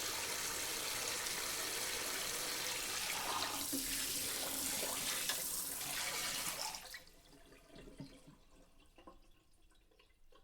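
Dish sprayer spraying water onto dishes in a sink: a steady hiss that grows louder partway through, then cuts off suddenly. After it stops come scattered drips and small ticks as the water runs off.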